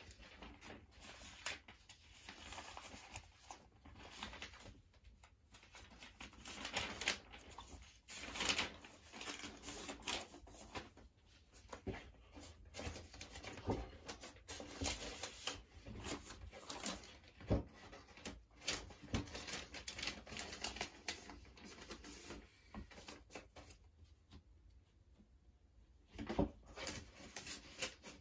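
Irregular rustling, scraping and small taps of a vinyl record's paper inner sleeve and cardboard jacket being handled, as the record is worked back into its sleeve. The handling eases off for a few seconds near the end, then picks up again.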